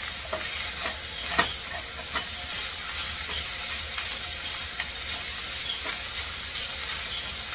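Chopped steak, chicken and scrambled eggs sizzling in a frying pan while a spatula stirs and turns them. A steady frying hiss runs underneath scattered clicks and scrapes of the spatula against the pan, the sharpest about one and a half seconds in.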